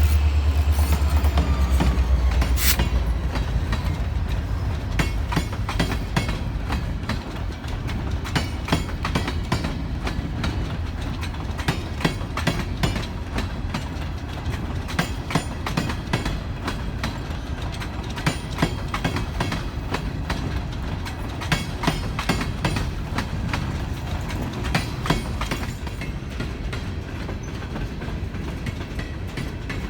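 A Canadian Pacific EMD SD40-2 diesel locomotive's engine rumbles loudly as it passes in the first couple of seconds, then a ballast train rolls by, its wheels clacking steadily over the rail joints and growing softer near the end.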